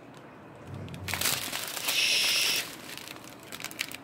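Strip of small plastic bags of diamond painting drills crinkling as it is handled, loudest for about half a second near the middle.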